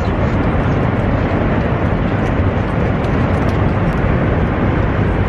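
Steady, even rush of engine and airflow noise inside the passenger cabin of an Airbus A330 airliner in cruise flight.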